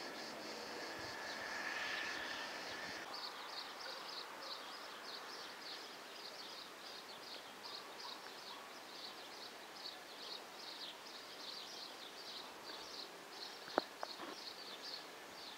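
Rural outdoor ambience: a steady hiss with a dense series of short high chirping calls, several a second, from about three seconds on. Before that, a drone swells and cuts off abruptly. A single sharp click comes near the end.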